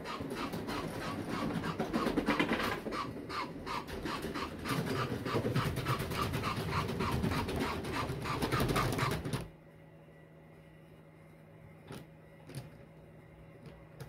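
Bachmann North Pole model train running past on its track with a rapid, even rhythmic clatter, which cuts off suddenly about nine and a half seconds in as the train stops. After that only a low steady hum and a few small clicks remain.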